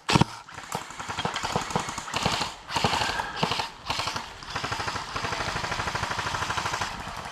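Airsoft guns firing in rapid bursts, a fast rattle of shots that runs into a steady stream of rapid fire in the second half.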